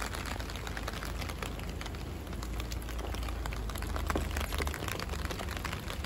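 Rain pattering steadily in typhoon weather, a dense crackle of drops over a low rumble.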